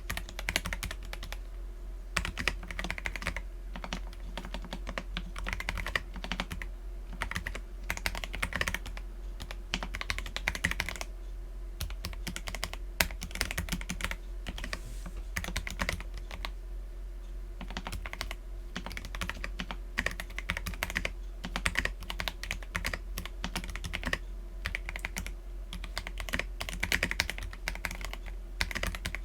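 Continuous fast typing on an Akko PC75B mechanical keyboard with lubed Akko Jelly Black linear switches and PBT Cherry-profile keycaps: a dense run of key clacks, easing briefly a few times.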